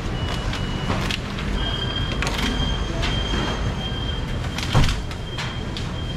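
Market stall background noise: a steady low rumble with scattered knocks and clicks, a thin high steady tone through the middle, and one louder knock about five seconds in.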